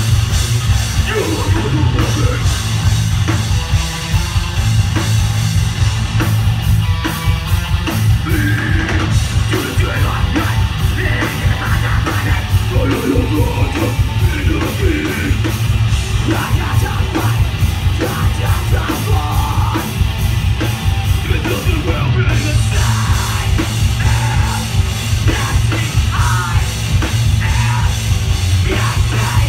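Live heavy rock band playing: distorted electric guitar and drum kit under a singer yelling into the microphone, with a heavy, booming low end.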